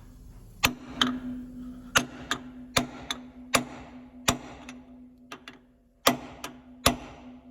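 Hammer blows on a cold chisel set against a snapped, seized bolt stub in a steel knife bed: about a dozen sharp metallic strikes, roughly every half second and unevenly spaced, each ringing briefly, with a faint steady hum underneath. The stub is being chiseled round to work it loose, but it is not turning.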